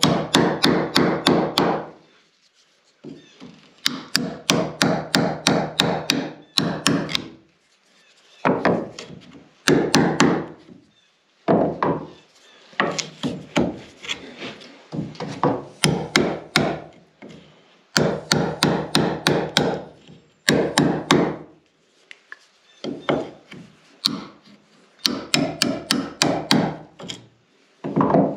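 A hammer tapping a wide flat steel blade into wood at the corner of a window rough opening, paring the wood away. The blows come in quick runs of about four or five a second, with short pauses between runs.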